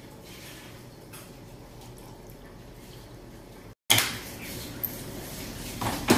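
Soaked dried mirasol chiles and their soaking water poured faintly into a blender jar, then clattering as the blender lid is fitted, and a sharp clack near the end as the jar is set onto the motor base.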